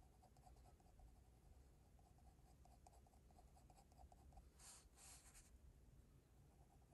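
Faint scratching of a pencil on paper in short, quick sketching strokes, with two longer, louder strokes close together about four and a half to five and a half seconds in.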